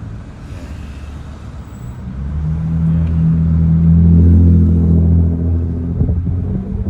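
A motor vehicle's engine droning low and steady. It grows louder to a peak about halfway through, then eases off, with a few light knocks near the end.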